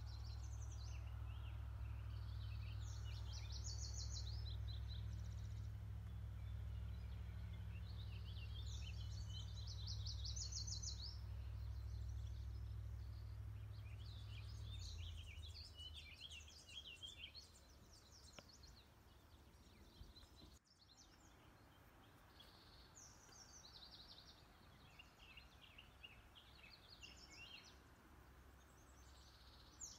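Songbirds singing around a pond in short, repeated chirping and trilling phrases that come every few seconds. A low, steady rumble lies under them for the first half and stops about halfway through.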